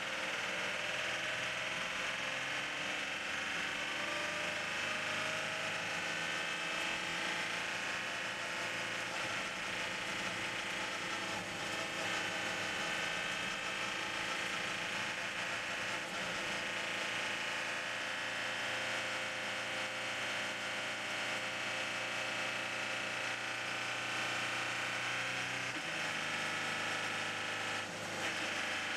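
Onboard sound of the Audi R18 e-tron quattro's V6 diesel engine running at racing speed on a wet track, its note changing only slowly under a steady rush of wind and tyre noise. A gear change comes near the end.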